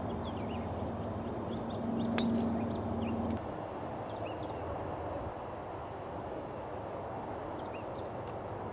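Open-air ambience with scattered small bird chirps and a steady low hum that cuts off about three and a half seconds in. About two seconds in there is a single sharp click of a golf club striking the ball on a short chip shot.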